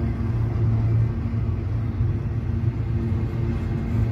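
Freight cars of a Norfolk Southern intermodal train rolling past, a steady low rumble of wheels on rails.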